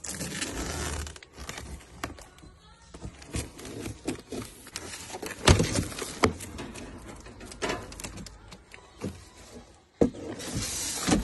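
Knocks, clatter and scraping from parts and packaging being handled during assembly. There are bursts of rustling noise in the first second and again near the end, with sharp knocks in between, the loudest about halfway through.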